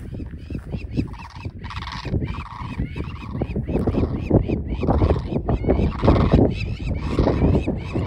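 A pair of blue cranes calling in flight, giving many short, repeated honking calls, over heavy wind noise buffeting the microphone.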